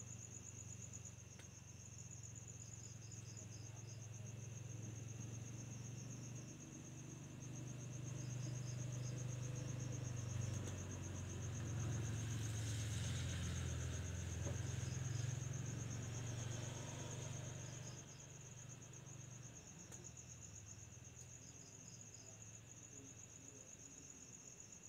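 Crickets trilling steadily in a fast pulsing train. Short groups of chirps from another insect come every few seconds, over a steady high note. A low rumble swells through the middle and fades again.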